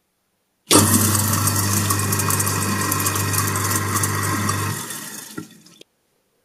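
Kitchen tap running hard into a stainless steel sink, starting suddenly with a low hum under the rush of water, then turned off about four seconds later, the flow tapering away with a small click.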